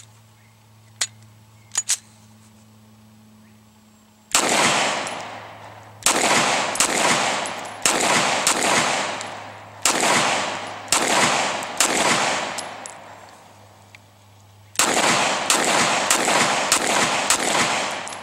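A 9mm Glock 19 pistol in a CAA Micro RONI Recon carbine kit fired semi-automatically: about fifteen shots in uneven strings, starting about four seconds in, with a pause of a couple of seconds near the middle. Each shot rings out and fades over about a second.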